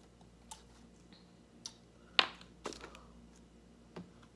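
Scattered light clicks and taps of hands handling food at a table: lettuce and the bun being put onto a chicken sandwich. About five short clicks, the sharpest about two seconds in.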